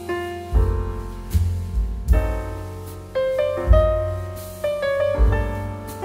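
Background piano music: notes struck and left to fade, with a deep bass note about every second and a half under a slow melody.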